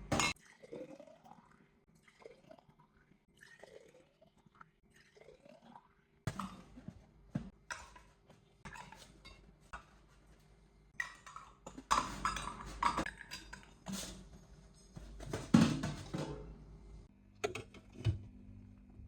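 Kitchen clatter: dishes and utensils clinking and knocking irregularly, starting about six seconds in and busiest toward the middle, after a few seconds of short gliding tones.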